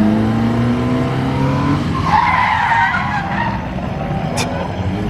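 A car's engine revving, its pitch slowly rising, then tyres squealing from about two seconds in, as in a burnout or drift.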